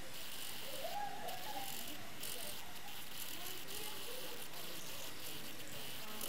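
Steady high hiss and whine from a small radio-controlled model vehicle driving, swelling and easing as it moves, with faint distant voices wavering underneath about a second in and again around four seconds in.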